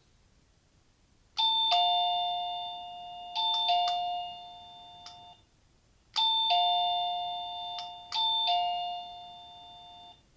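Zemismart plug-in wireless doorbell sounder playing a chime tune through its small loudspeaker, set off by its battery-free kinetic bell push. The tune plays twice, each time as two pairs of ringing notes that fade and then cut off abruptly.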